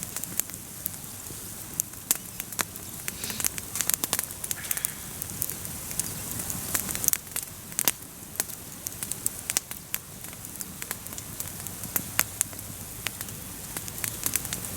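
Wood campfire crackling, with many sharp, irregular pops over a steady hiss.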